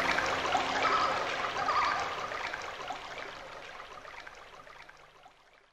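Closing of the soundtrack music: the held notes stop, and a dense, noisy texture with scattered short notes fades out steadily to silence near the end.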